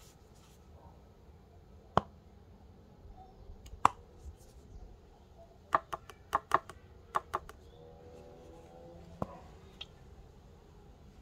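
Plastic measuring spoon clicking and tapping against a plastic mixing bowl and tub while thick cream is scooped and scraped off: single sharp clicks about two and four seconds in, a quick run of about eight clicks around six to seven seconds in, and two more near the end.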